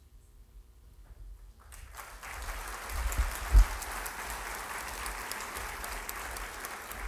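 Audience applause that starts about two seconds in and runs on evenly, with a single low thump about three and a half seconds in.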